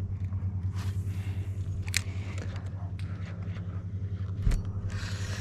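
A motor hums steadily and low throughout, with a few sharp clicks, the sharpest about two seconds in, and a heavy thump near the end.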